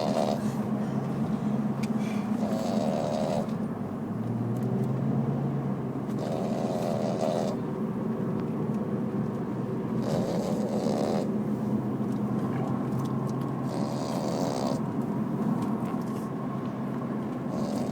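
A dog snoring: a rasping snore on each breath, repeating about every three and a half seconds, over a steady low hum.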